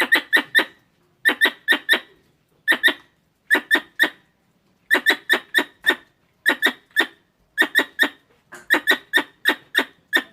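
Squirrel calls: sharp, high chirps fired in quick runs of three to five, a run about every second, the alarm-like chatter used to lure squirrels.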